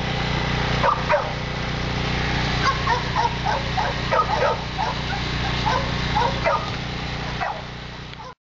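Dogs barking and yipping in short sharp calls, a couple about a second in and then a quick run of them, over a steady low hum.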